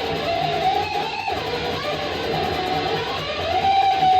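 Live noise music: a held tone that wavers and bends slightly in pitch over a steady low drone, growing louder near the end.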